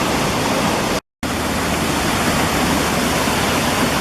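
Waterfall rushing steadily, a constant loud noise of falling water that cuts out completely for a split second about a second in.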